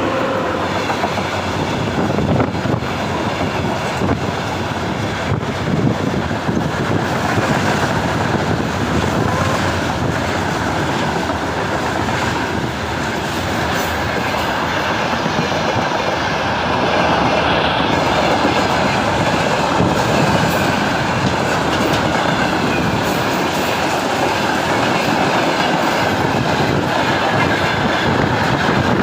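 Freight train passing at speed: a steady rolling rumble of the wagons with wheels clacking over the rail joints.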